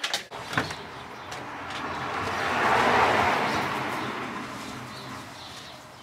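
A few clicks and knocks, then a car passing in the street, its tyre and engine noise swelling to a peak about three seconds in and fading away.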